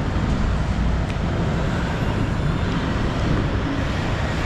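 Steady outdoor background rumble with no distinct events, strongest in the low end.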